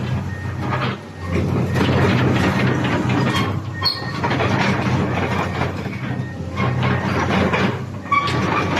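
Diesel engine of a Komatsu PC200-8 hydraulic excavator running under load, with dense mechanical rattling and clanking that swells and eases in surges.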